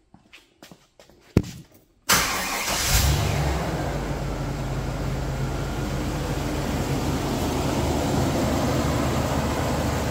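A few light clicks and a sharp knock. About two seconds in, the Chevy Express van's 5.7-litre V8 starts suddenly, flares briefly, and settles into a steady idle.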